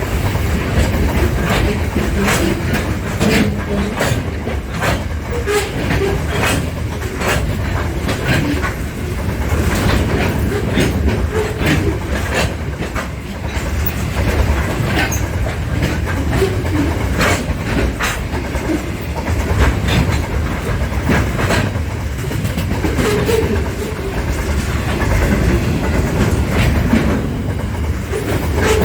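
Train running on the rails: a steady low rumble with wheels clicking over the rail joints again and again.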